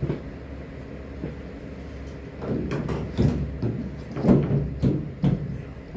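Loose parts being handled and shifted back into place, knocking and clattering together. There is a click at the start, then a run of knocks and scrapes in the second half, over a steady low hum.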